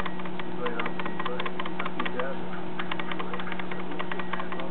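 Steady electrical hum of a small photo camera's recording, with a busy run of light, irregular clicks from a small packet of playing cards being handled.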